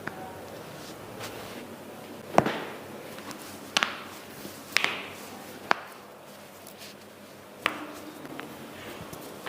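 Several sharp cracks and pops from the spine during a chiropractic back adjustment. The loudest comes about two and a half seconds in, some come in quick pairs, and the rest are spaced a second or two apart.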